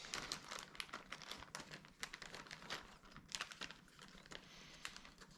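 Small plastic zip bags crinkling faintly with many quick, irregular crackles as they are handled and pressed flat to squeeze the air out.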